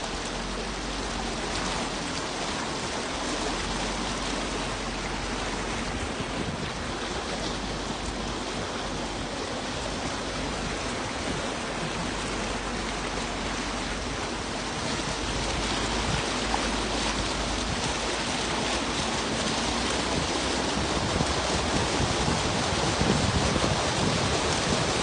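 Floodwater rushing around a vehicle: a steady, even hiss of water with a low engine hum underneath, growing somewhat louder in the last ten seconds.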